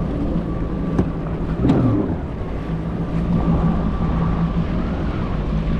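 Personal watercraft engine running steadily at low speed with an even hum. There are two brief knocks about one and two seconds in.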